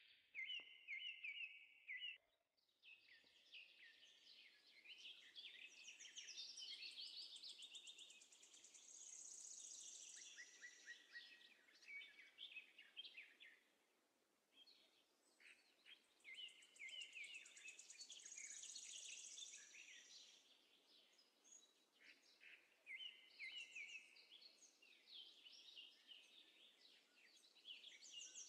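Faint chorus of small birds chirping and singing, many short overlapping calls and trills throughout.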